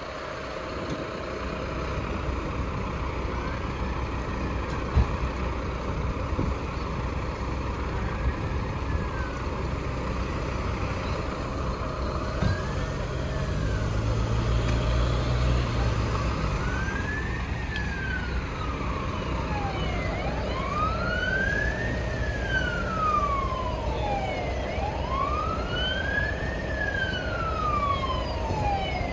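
Emergency vehicle wail siren rising and falling slowly, each cycle about four to five seconds, faint at first and growing much louder from about halfway as it approaches. A steady low engine rumble runs underneath.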